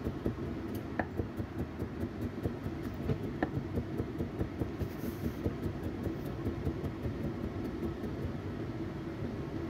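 Chinese cleaver chopping rapidly and steadily on a wooden chopping block, about four chops a second, coarsely mincing ginger.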